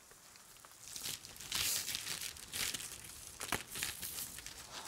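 Plastic film crinkling and rustling as it is handled, in irregular bursts starting about a second in, with one sharp crackle midway.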